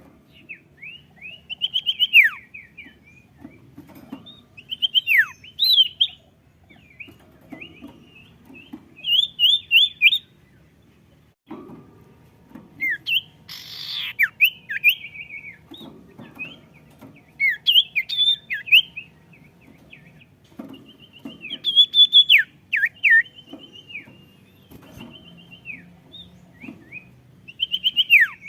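A sirtu songbird singing energetically in short phrases of rapid chirps and steeply falling whistles, a burst every second or two with brief pauses between.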